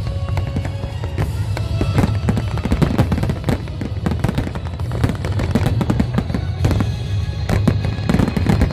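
Large fireworks display: a rapid, continuous run of bangs and crackles from aerial shells and low fountains, with no pauses.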